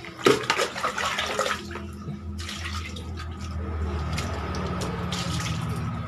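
Water splashing in a plastic bucket as boiled duck meat is rinsed, then a steadier run of water in the second half.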